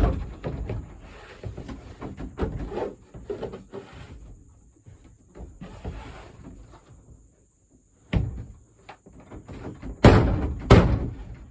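Plastic shed panels being pushed and knocked into place: a run of knocks and rattles, with two loud thumps near the end.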